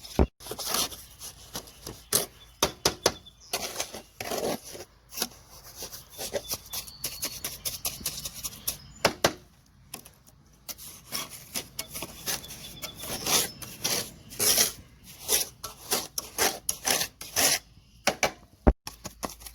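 A hand tool scraping through cement mortar in irregular strokes, with occasional sharp knocks, as the mortar is worked into the forge pan.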